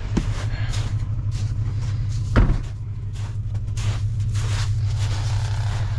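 Toyota Tundra's 4.7-litre V8 idling steadily, with one heavy thump of the truck door shutting about two and a half seconds in.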